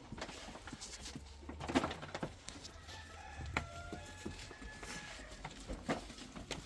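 A rooster crowing once, one long call held for about two seconds near the middle, with a few sharp knocks and clicks around it.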